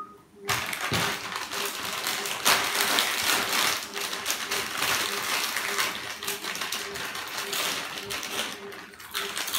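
Lay's potato chip packets, plastic-foil bags, crinkling and crackling as they are torn open and handled.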